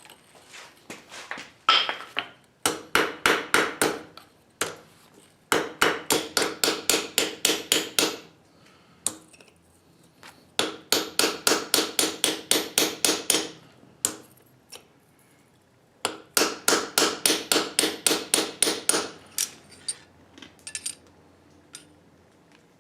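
Blacksmith's hammer striking steel on an anvil in four runs of quick, evenly spaced blows, about four a second, each blow ringing, with a few lighter single taps between the runs.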